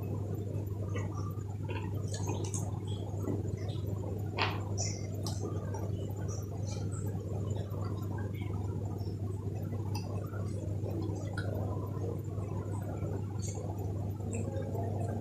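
Close-miked wet chewing and mouth sounds of a man eating liver curry with rice: scattered lip smacks and small clicks over a steady low hum.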